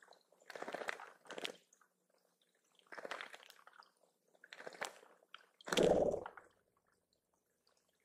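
Male summer tanager bathing in a shallow pond, splashing in short bouts every second or two, with the loudest splash about six seconds in.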